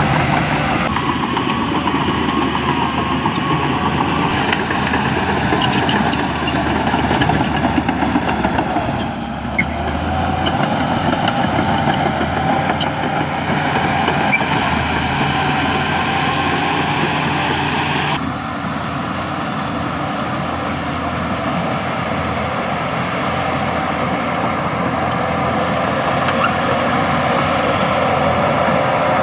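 Diesel engines of heavy earthmoving machines, dump trucks and bulldozers, running steadily. The sound shifts abruptly about two-thirds of the way through.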